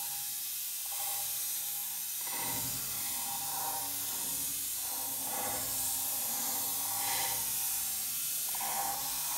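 Diced squash and beets sizzling in oil in a stainless steel frying pan as more pieces are dropped in by hand: a steady hiss.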